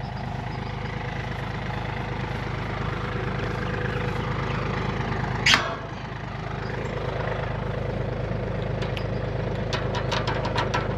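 Farm tractor's diesel engine running steadily, with one loud, sharp sound about five and a half seconds in and a run of quick clicks near the end.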